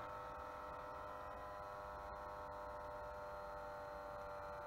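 Hand-held electric heat gun running steadily, its fan motor giving a constant whine made of several steady tones over a low rumble.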